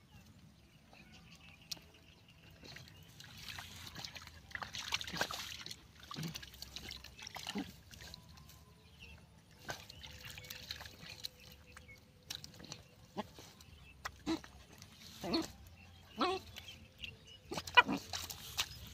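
Dogs splashing and scuffling through a shallow muddy ditch as they search the water, in irregular bursts of sloshing, with a few sharper knocks near the end.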